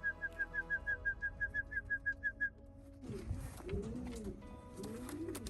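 A fast run of high, even chirps, about six a second, stops about halfway through. Pigeons start cooing in low, rising-and-falling calls.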